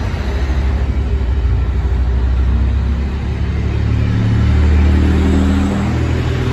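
DSB IC3 (MF) diesel multiple unit pulling away past the platform, its diesel engines running under load with a deep drone. The engine note steps up about four seconds in as the train gathers speed.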